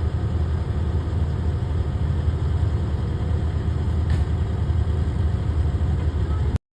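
An engine idling steadily, a low rumble that cuts off suddenly near the end.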